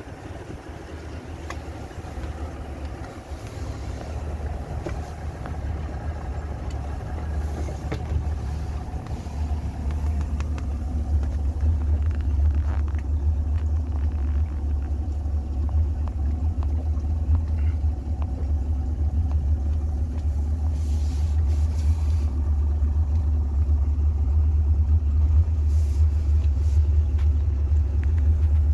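Steady low rumble of the boat's engine running, growing gradually louder.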